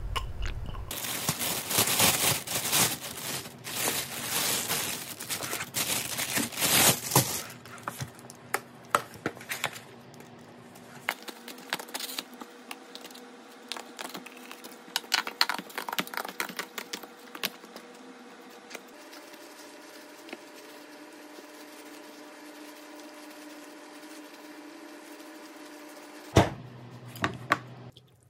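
Paper wrapping on a takeaway food container being torn by hand and crumpled: dense, loud crinkling and tearing for the first several seconds, then lighter, scattered rustles and clicks over a faint steady hum, with one sharp click near the end.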